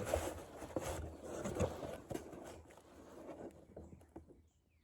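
Rustling with scattered light clicks and knocks, going quiet near the end.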